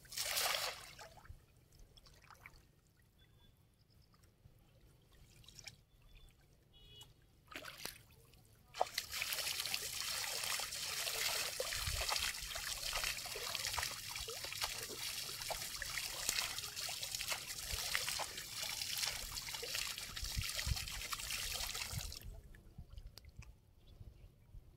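Water trickling and pouring steadily, with many small splashes, starting about nine seconds in and stopping abruptly about thirteen seconds later.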